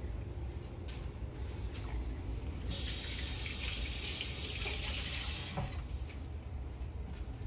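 Kitchen tap turned on and running for about three seconds, then shut off, over a steady low hum.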